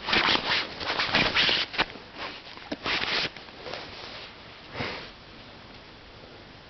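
A dog sniffing in a run of quick, noisy bursts over the first three seconds, with one more sniff a couple of seconds later.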